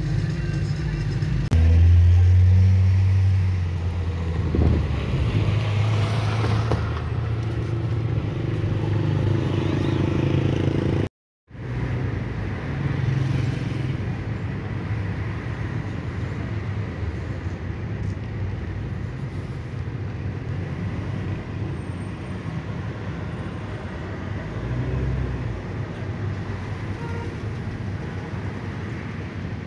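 Car engine and road noise heard from inside the cabin while driving in slow city traffic, a steady low rumble that swells into a louder low hum for a couple of seconds near the start. The sound cuts out completely for a moment about eleven seconds in, then resumes.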